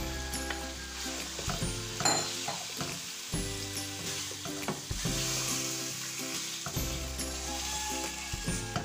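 Raw boneless chicken pieces sizzling in hot oil and ginger-garlic paste in a nonstick pan, freshly added and still giving off their water. A wooden spatula stirs them, scraping and knocking against the pan, with the loudest knock about two seconds in.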